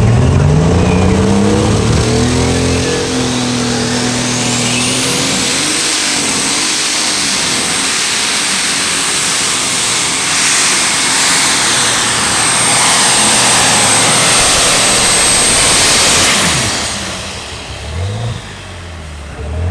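Unlimited super stock pulling tractor, a modified John Deere 7720, launching and running at full throttle under the load of the pull. The engine revs up steeply in the first two seconds, then holds at full power, very loud, with a high steady whistle over it. Near the end the throttle is cut and it drops to a low idle with a couple of short revs.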